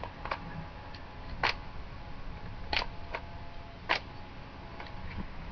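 Stinger R36 airsoft pistol firing single shots at a paper target: sharp snaps about a second apart, four of them clear, with fainter ticks between them.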